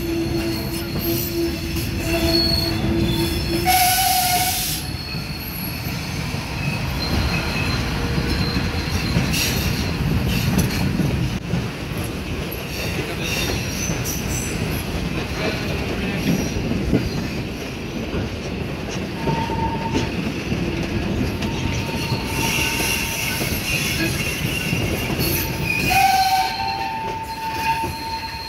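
Train rolling slowly through a station yard over switches, wheels rumbling on the rails with several drawn-out wheel squeals at different pitches. There is a short hiss about four seconds in.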